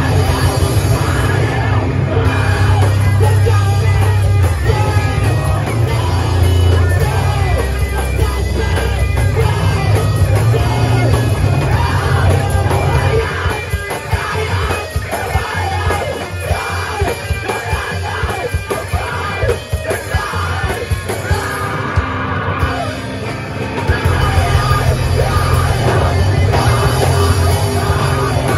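A live rock band plays loud, distorted music with drums and shouted vocals. The heavy bass end thins out about halfway through.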